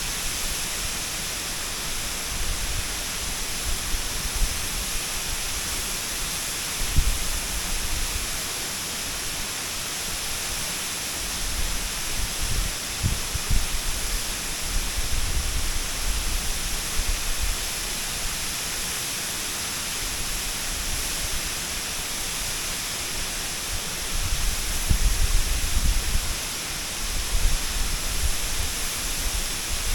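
Waterfall: a steady rush of falling water, with a low rumble that swells up a few times.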